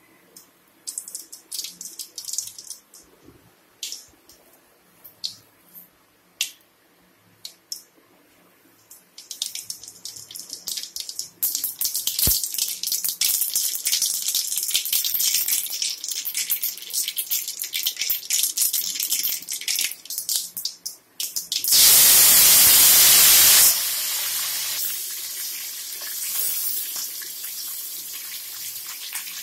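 Cooking oil heating in an aluminium pot: scattered pops and crackles at first, then a steady sizzle. About two-thirds through, a loud burst of sizzling lasting about two seconds, typical of chopped onions, green chillies and curry leaves going into the hot oil, settles into a quieter steady frying sizzle.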